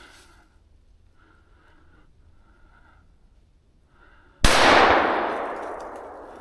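A single gunshot about four and a half seconds in, its report rolling away and dying out over about two seconds. It is a shot fired up into a squirrel's leaf nest to flush the squirrel out.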